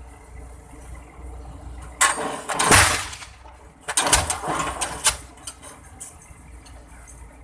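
Diesel pile-driving hammer firing: a few loud, rough blasts roughly a second apart over a steady low hum.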